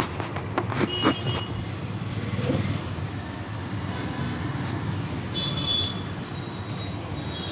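Steady street traffic noise from passing vehicles. There are a few sharp clicks in the first second or so, and a short high tone a little past the middle.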